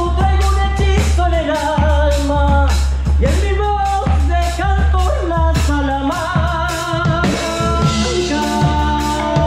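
Live band music: a drum kit keeps a steady beat under electric and acoustic-electric guitars, with a sliding lead melody.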